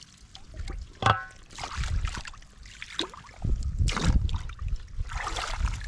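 Water splashing and sloshing in an irregular run of surges as a man moves about waist-deep in a shallow stream pool, working a woven bamboo basket through the water. A sharp knock with a brief ring comes about a second in.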